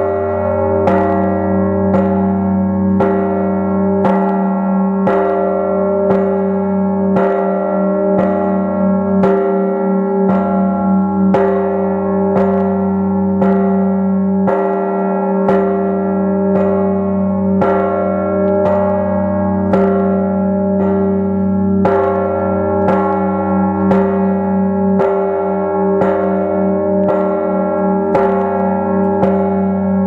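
Large Orthodox church bell struck at an even pace of about once a second, its deep hum ringing on unbroken between strokes.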